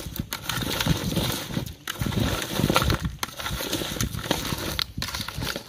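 Raw shrimp and crayfish being stirred together with chopped seasonings and spices, a busy, continuous mixing noise broken by a few short pauses.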